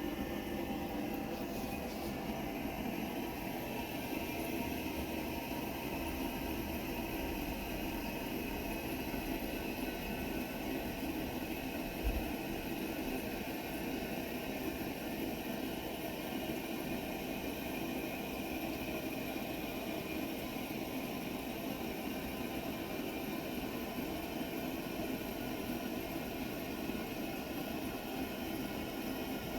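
Toilet cistern refilling after a flush: a steady rushing of water through the fill valve, with one brief low thump about twelve seconds in.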